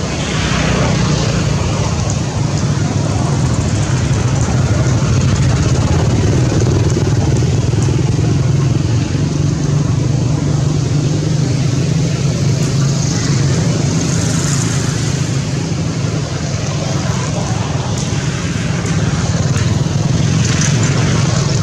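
An engine running steadily, giving a constant low drone.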